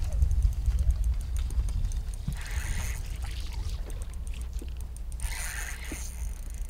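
Low rumble of wind on the microphone over water lapping at a fishing boat. Two brief splashes, about two and a half and five seconds in, and faint clicking from the spinning reel come as a hooked walleye is reeled in.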